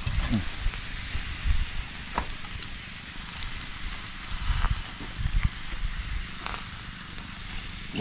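Fish grilling over charcoal embers, sizzling steadily, with a few sharp crackles and pops from the fire.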